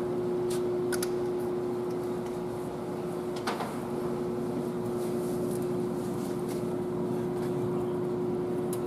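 Steady shop background hum with one constant mid-pitched tone, like ventilation or machinery running, with a few faint clicks and a brief rustle about three and a half seconds in.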